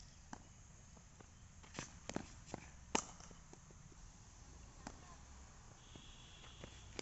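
A cricket ball struck by a cricket bat: one sharp crack about three seconds in, with a few fainter knocks and taps just before it.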